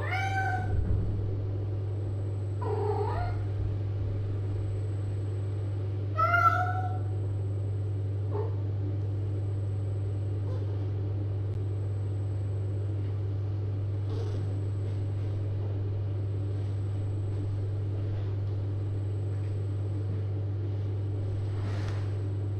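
Cats meowing, a handful of short meows, most in the first seven seconds and the loudest about six seconds in, over a steady low electrical hum.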